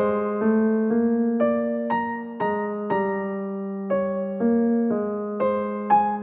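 Background music: a slow, gentle piano piece, notes struck about twice a second and left to ring.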